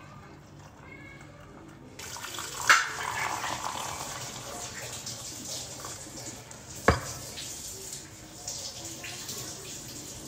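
Hot water pouring, a steady splashing hiss, with two sharp clinks of kitchenware about three seconds apart.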